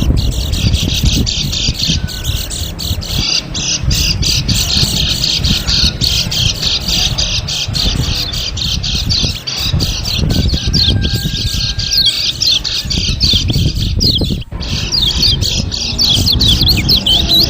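Dense chorus of white-eye (pleci) calls used as a bird lure: many quick, high chirps and twitters overlapping without a break, over a low rumble.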